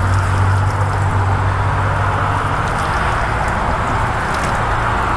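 Purified water spraying from the jets of a water-fed pole brush onto window glass during the final rinse, a steady hiss of running water, with a steady low hum underneath.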